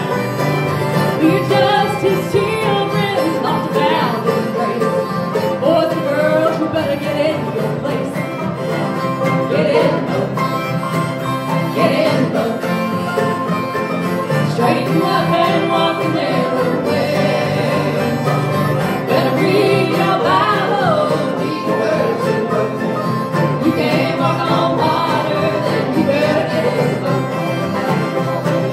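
Acoustic string band playing a bluegrass-style song, with guitars, mandolin, ukulele and banjo strumming and picking together and voices singing the melody over them.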